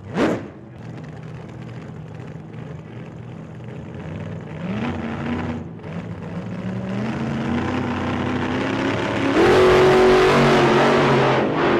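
A car engine revving up, its pitch climbing in steps and growing louder, loudest near the end. A brief rising whoosh about a quarter second in.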